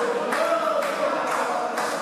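Wrestling crowd chanting in unison and clapping in time, about two claps a second.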